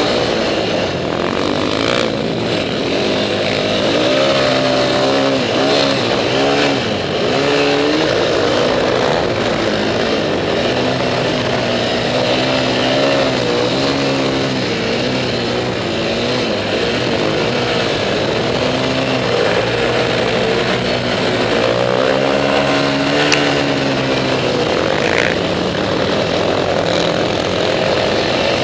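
Can-Am DS450X quad's single-cylinder four-stroke engine, heard close up, revving up and down repeatedly under load, with a steady rush of wind noise over it.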